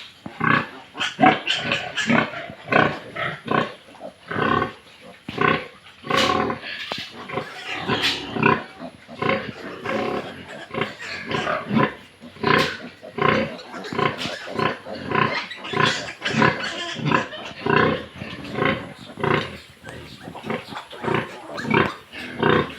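A group of pigs making short calls, many overlapping one after another with no pause.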